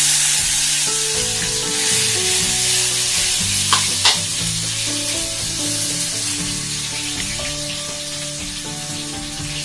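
Food sizzling hard in a hot frying pan on a gas stove. It starts abruptly as ingredients go into the pan, then slowly dies down, with two sharp clicks about four seconds in. Background music plays underneath.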